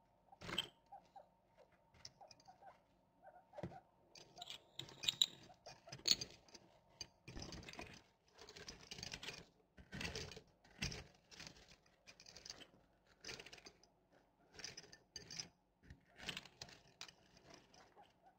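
Guinea pigs rummaging among glass marbles and small toys: irregular rustling with light clicks and clinks.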